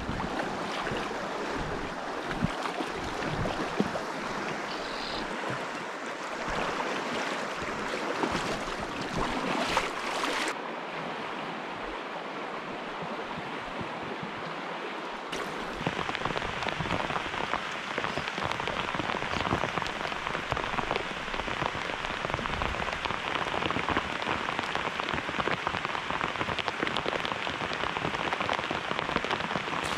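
Rushing stream water, then, about halfway through, rain falling steadily on the river and the homemade drift boat: a dense hiss of many small drop ticks.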